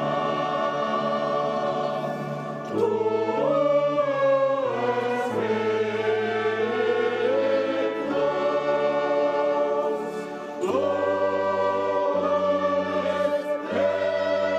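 Choir singing sacred music in a reverberant cathedral, with long held chords that change every few seconds.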